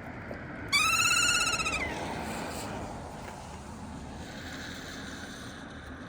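A kea calls once: a loud, high-pitched, wavering screech lasting about a second that drops in pitch at the end, over a steady background hiss.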